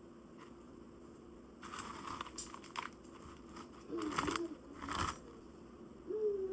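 Doritos crunching and their bag crinkling as the chips are crushed, in three short bursts about two, four and five seconds in, over a steady low hum.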